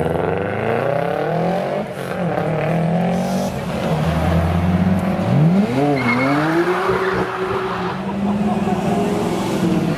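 Subaru Impreza's 2.2-litre EJ22 flat-four engine revving hard as the car accelerates away. About five and a half seconds in the revs climb, dip briefly and climb again.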